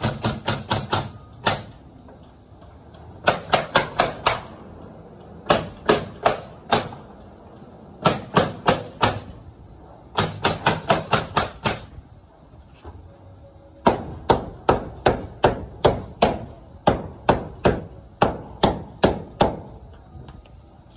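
Pneumatic nailer driving nails into plywood wall sheathing in quick runs of sharp shots, about five a second, five to eight shots per run with short pauses between runs.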